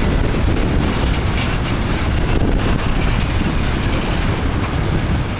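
Empty steel flatcars of a freight train rolling past, a loud, steady rumble of wheels on rail.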